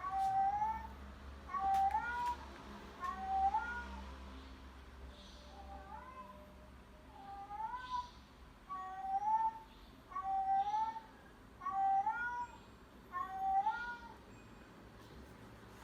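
A recorded cat-meow sound effect played over and over: about ten identical short meows, each rising in pitch, roughly one every second and a half, with a brief gap about a third of the way through.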